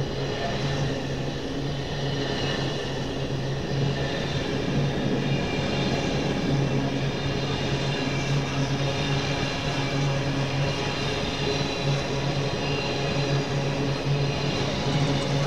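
Diesel train idling: a steady engine hum with fainter high whining tones above it, neither rising nor falling.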